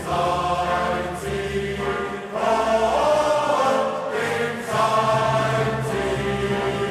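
Background music: a choir singing long held chords that change every second or two.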